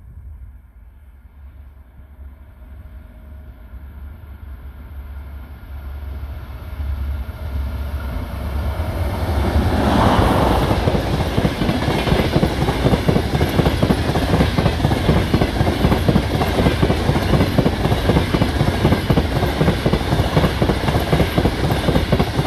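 Passenger train hauled by an EP20 electric locomotive approaching and passing. It grows louder for about ten seconds, then passes close, with a fast, dense clatter of carriage wheels on the rails.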